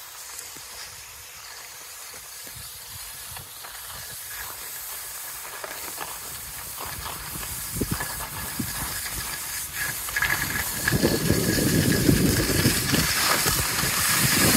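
Skiing downhill on packed, groomed snow at night: a steady scraping hiss of snow under the skis that grows steadily louder as speed builds, heaviest and rumbling in the last few seconds.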